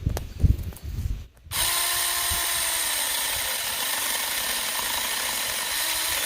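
Saker 20V mini cordless electric chainsaw starting about a second and a half in and then running steadily, cutting through a small dead branch. Before it starts there are a few low knocks and handling sounds.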